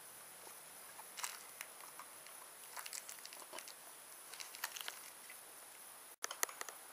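Faint scattered clicks and crinkles of hard plastic doll legs and cloth trousers being handled by fingers, with the loudest cluster of clicks a little after six seconds in.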